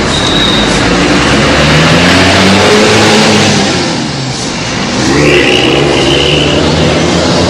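A bus telolet horn playing a tune of short stepped notes over loud bus engine and road noise. The level dips about four seconds in, then the horn and engine come back up.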